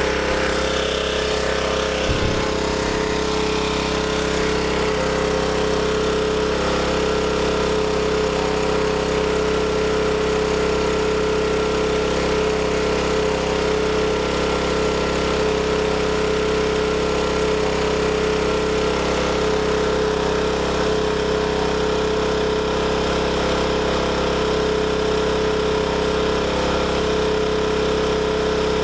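Small portable gasoline generator engine running at a steady speed with no electrical load.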